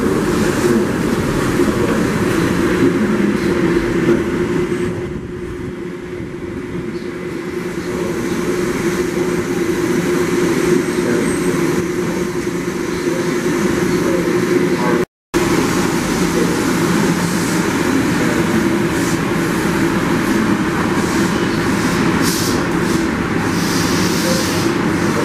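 Neoplan AN440LF electric trolleybuses running through the busway tunnel: a steady hum from the electric drive over a constant rumble of noise. The sound cuts out for a moment about fifteen seconds in, and a few short hisses come near the end.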